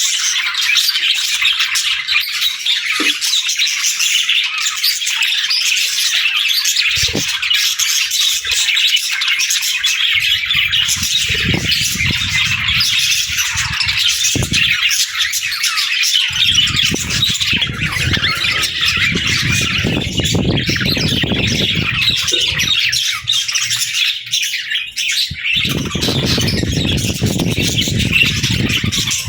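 A group of pet budgerigars chattering and squawking without pause, a dense mass of overlapping high chirps. A low rumbling noise rises under the chirping several times, for a few seconds each.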